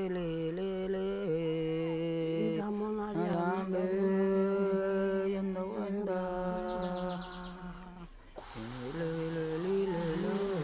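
Slow background music of long held notes that change pitch every second or two. The music fades briefly about eight seconds in, then carries on.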